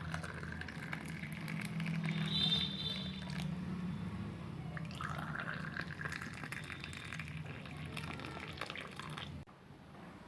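Hot tea being poured from a saucepan into cups: a steady stream of liquid filling a cup, in two pours, the second beginning about halfway through and stopping abruptly near the end.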